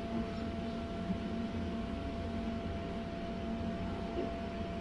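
Electric inflator blower of a bounce house running steadily: a constant whir with a faint, unchanging high tone.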